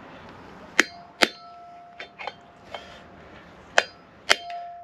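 A hammer strikes a steel drift to drive a new wheel bearing race into a caravan's brake drum hub. Sharp metallic clangs come as two pairs of loud strikes about half a second apart, with a few lighter taps between them, and the drum rings briefly after some blows. The race is reluctant to go in square.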